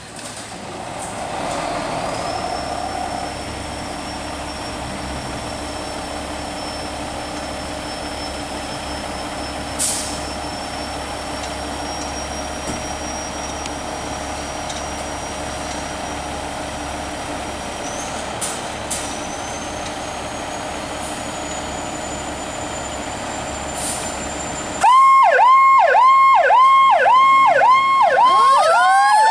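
A fire tanker truck running with a thin, steady high whine that slowly rises in pitch, and a few sharp clicks. About 25 seconds in, its electronic siren comes on loud in a fast yelp, about three sweeps a second, then switches near the end to a slow rising wail.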